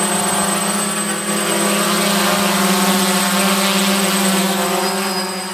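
DJI F550 hexacopter hovering close by: its six 920 KV brushless motors and propellers give a steady buzz made of several even tones over a strong low hum.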